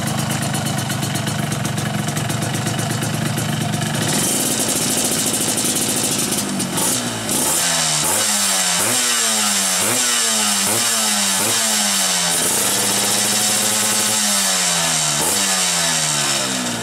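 Yamaha RX-King's two-stroke single-cylinder engine running through a chrome aftermarket racing muffler. It idles, runs steadily a little faster from about four seconds in, then is revved in a quick run of about seven throttle blips, each rising and falling in pitch. After a short steady pause come a few more blips before it settles again.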